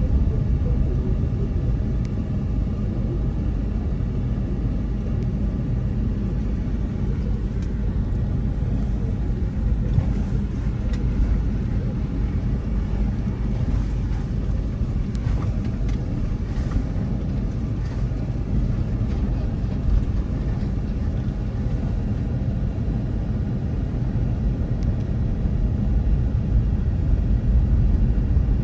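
Car cabin noise while driving: the engine and tyres make a steady low rumble, with a few brief knocks and rattles from the rough road.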